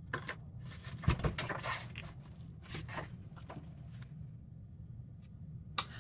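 Packaging rustling and crinkling as a boxed product is handled, a quick run of short scratchy sounds, followed by a couple of sharp clicks near the end.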